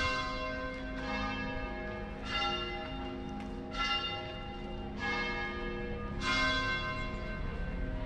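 Church bells ringing: six strikes a little over a second apart, each note ringing on into the next.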